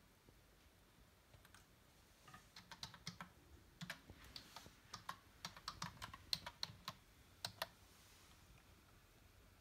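Typing on a computer keyboard: a quick, uneven run of key clicks starting about two seconds in, which stops with about two seconds left.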